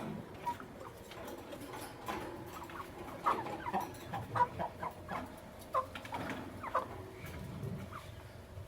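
Lovebirds chirping: a series of short, sharp chirps that come thickest from about three seconds in until near the end.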